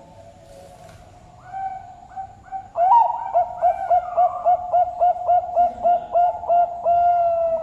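Zebra dove (perkutut) singing: a few soft coos, then about three seconds in a loud, quick run of short coos at roughly three a second, ending in one long held note.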